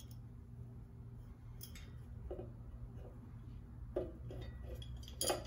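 Light handling noise of a metal ceiling-fan canopy and wires being worked over the downrod: a few faint, scattered clicks and taps, the clearest near the end, over a steady low hum.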